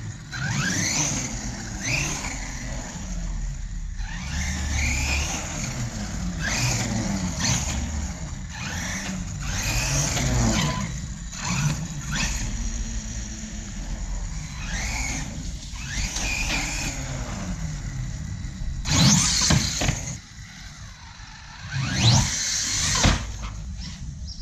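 Hobao MTX 1/8 electric monster truck on 8S power: its brushless motor whines up and down in pitch through repeated bursts of full throttle, with tyres squealing and scrabbling on concrete. The hardest bursts come about 19 and 22 seconds in.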